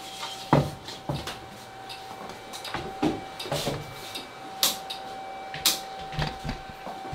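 Irregular footsteps and small knocks as people walk through a doorway, over a steady high-pitched electrical whine.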